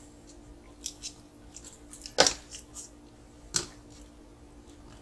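Scattered light clicks and knocks of a plastic RC car speed controller being handled and pressed down onto Velcro on the plastic chassis, with two sharper knocks about two and three and a half seconds in.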